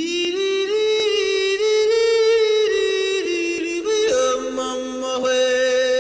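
Music: a single sustained melody line that slides slightly between long held notes. About four seconds in, it shifts to a higher held note over a steady lower drone.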